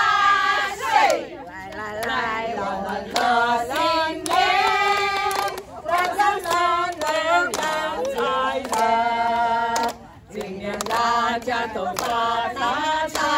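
A group of women singing together and clapping their hands along with the song.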